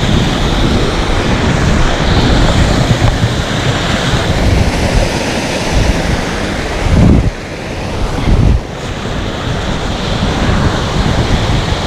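Waterfall rushing steadily, with wind buffeting the microphone in gusts, strongest twice past the middle.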